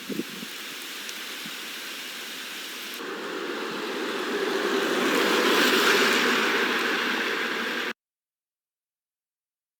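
Gas burner flame hissing steadily, heating asphalt repair material; it grows louder from about three seconds in and cuts off suddenly near the end.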